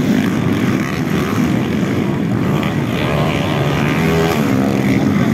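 Several underbone motorcycles racing on a dirt motocross track, their engines running hard and revving, the pitch rising and falling as riders throttle up and ease off, clearest in the second half.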